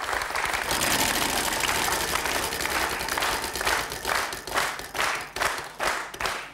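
Studio audience applauding, and from about halfway in, the ticking of a spun game-show prize wheel's pointer against its pegs, about three ticks a second and slowing as the wheel loses speed.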